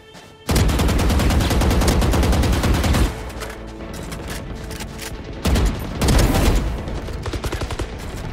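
Video-game gunfire: a long burst of rapid automatic fire starting suddenly about half a second in and lasting about two and a half seconds, then a second, shorter burst near the end.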